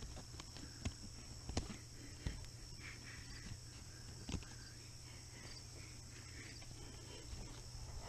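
Faint handling sounds of canvas being fastened to a pop-up camper's metal corner post: a few scattered sharp clicks and taps over a steady high hiss.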